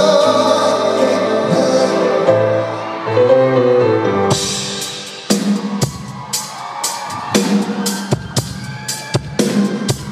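Pop music played live at a concert. Held chords fill the first four seconds, then a drum beat with sharp hits comes in.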